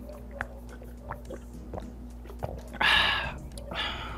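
A person swallowing water from a glass in a few soft gulping clicks, then two short, loud breaths out, the first louder.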